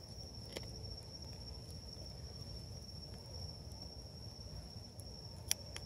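Night insects, such as crickets, making a steady, high-pitched drone over a low background rumble. There is a faint click about half a second in and a sharper click about five and a half seconds in.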